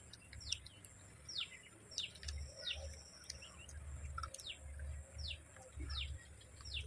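A bird calling over and over: short chirps that slide quickly downward in pitch, about one or two a second. Small clicks and a low rumble come and go underneath.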